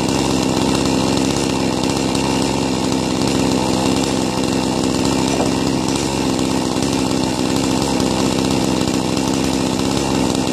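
Chainsaw engine running steadily at one speed, without revving.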